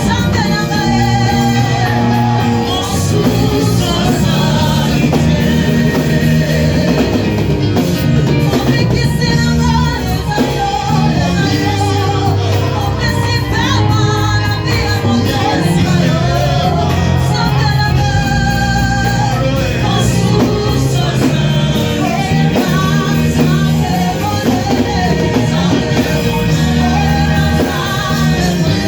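Church worship music: voices singing over a band with a steady bass line.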